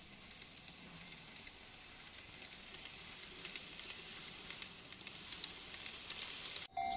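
A model train running along its track close by: a steady hiss with many irregular small clicks from the wheels on the rails. It grows slightly louder, then cuts off abruptly just before the end.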